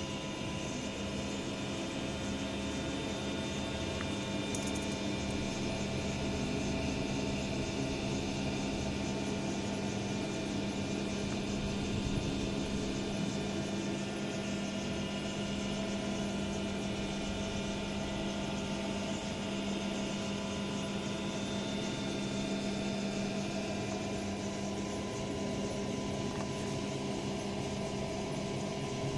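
3D printer running a vase print: a steady mechanical hum with several steady whining tones from its stepper motors and cooling fans.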